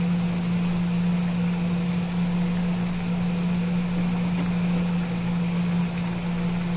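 Steady low mechanical hum with an even airy hiss, unchanging throughout.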